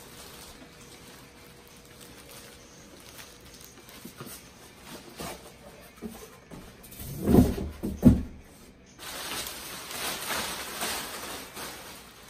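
Packaging being handled around a floorstanding speaker: two heavy thumps a little under a second apart past the middle, then the plastic bag crinkling as it is pulled up and off the cabinet.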